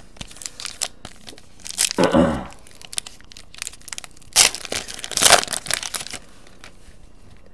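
Wrapper of a trading card pack being torn open and crinkled, in a few irregular rustling bursts, the loudest from about four and a half to six seconds in.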